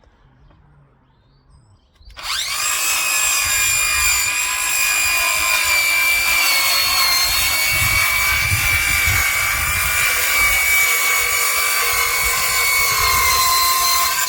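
Electric circular saw starting about two seconds in and ripping along a length of timber to take a lip off, a loud steady whining cut whose pitch sags slightly as the blade loads, stopping near the end.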